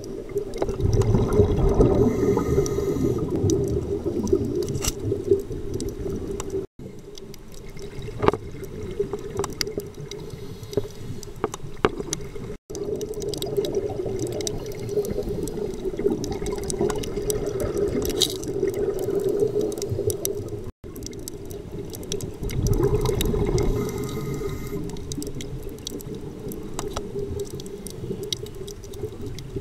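A scuba diver breathing through a regulator underwater, heard muffled: rushing bubble noise that swells and fades, loudest in the first few seconds, with scattered faint clicks.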